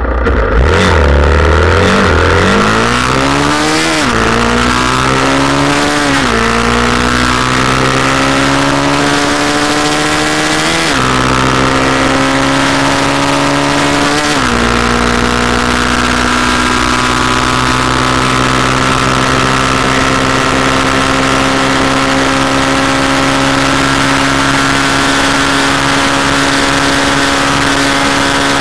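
Yamaha Scorpio's single-cylinder four-stroke engine pulling at full throttle. It revs up through the gears, with four upshifts in the first fifteen seconds, each a sudden drop in pitch. After that it holds top gear near top speed, its pitch creeping slowly higher, over a steady rush of wind.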